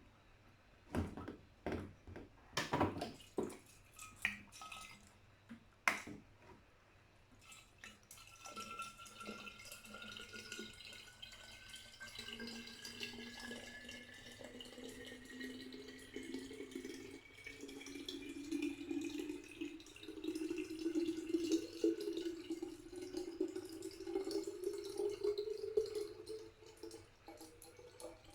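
A bottle being filled with water. The note of the filling rises steadily in pitch as the bottle fills. A few knocks and clicks of the bottle being handled come in the first several seconds.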